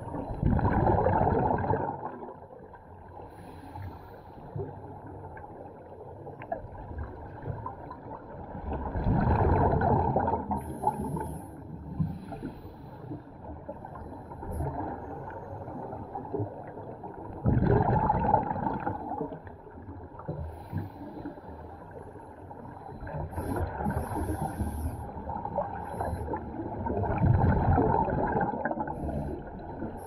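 Scuba divers' exhaled bubbles rushing and gurgling from their regulators, heard underwater as loud bursts a few seconds long, recurring about every eight to nine seconds, over a quieter muffled underwater wash.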